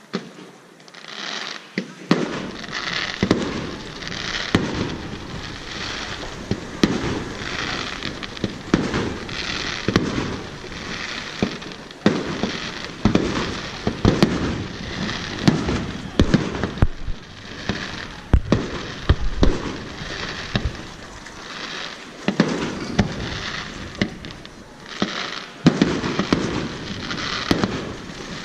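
Aerial fireworks bursting in quick succession: repeated sharp booms over steady crackling from the shells.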